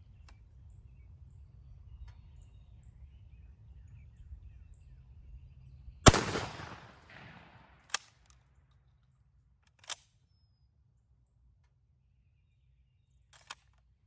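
A 12-gauge shotgun fires once about six seconds in, shooting a 3-inch lead turkey load. The report echoes away over about a second. Three short sharp clicks follow, a couple of seconds apart.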